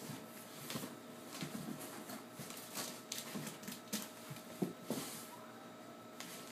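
Scattered soft knocks, bumps and rustles of cardboard as a child moves about inside a large cardboard box, its flaps shifting. A faint steady hum runs underneath.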